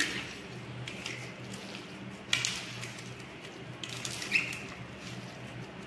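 A hand mixing chopped chicken and greens in a steel plate: soft squishing and rustling of the food, with two sharper, louder sounds about two and four seconds in, the second with a brief ring, over a steady low hum.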